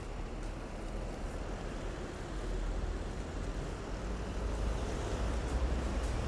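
Low rumble of road traffic, growing louder in the last two seconds.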